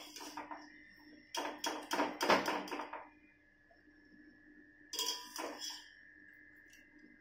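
Stainless steel bowl clanking against a metal cooking pan while boiled pasta is tipped in: a run of knocks about a second and a half in and another pair about five seconds in, each leaving the metal ringing.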